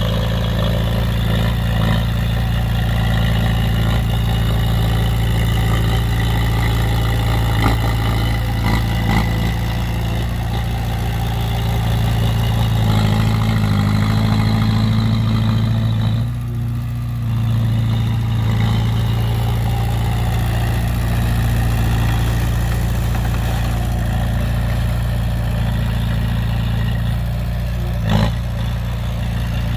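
Heavy vehicle engine running steadily with a low hum, dipping briefly about halfway through, with a single sharp knock near the end.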